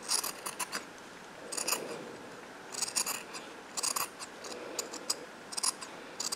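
Scissors snipping through nylon tights fabric, in short runs of a few quick snips each, coming about once a second.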